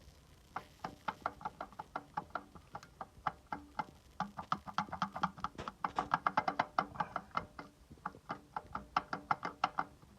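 Hand ratchet wrench clicking in quick runs of strokes, with short pauses between them, as bolts are undone.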